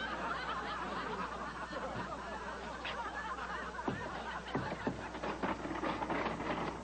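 Sitcom audience laughing at a punchline, a steady crowd laugh that thins in the second half, where a few sharp knocks come through.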